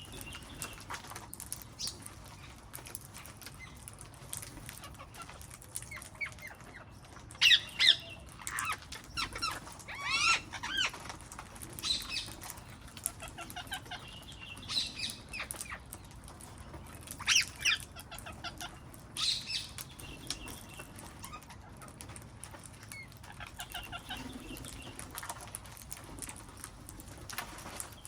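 Wild parrots calling with scattered harsh squawks and chatter, several loud calls bunched in the middle stretch.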